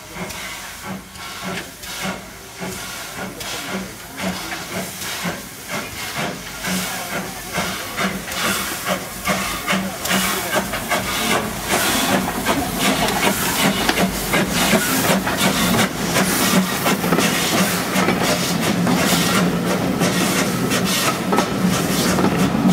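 A1X 'Terrier' class 0-6-0 tank engine No. W8 'Freshwater' chuffing as it pulls away with its carriages: evenly spaced steam exhaust beats with hiss that quicken and grow louder as the train gathers speed.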